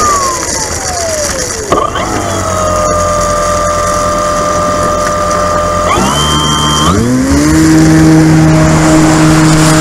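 RC model airplane's motor and propeller. The pitch glides down over the first two seconds and holds steady at low throttle, then rises in two quick steps about six and seven seconds in and settles into a louder, steady tone at takeoff power as the plane starts its takeoff roll.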